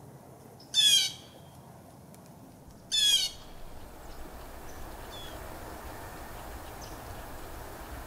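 A bird calls loudly twice, about two seconds apart, each call short, under half a second, made of fast repeated harsh notes. A few faint high chirps from other birds follow over a steady background noise that grows a little louder after the second call.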